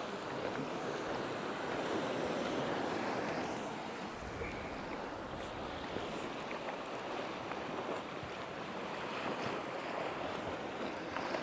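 Sea waves breaking and washing over shore rocks, a steady rushing, with some wind on the microphone.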